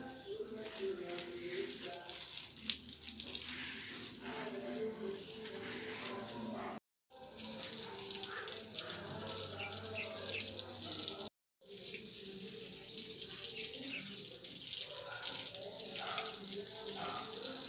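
Water spraying from a garden hose onto soil and plants, a steady rushing hiss. It cuts out completely twice for a moment, about seven and eleven seconds in.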